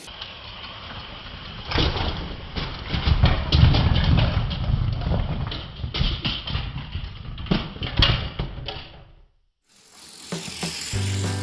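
Motorised Lego train running along plastic track: a steady motor whir and wheel rattle with scattered clicks and knocks. It cuts off suddenly about nine seconds in.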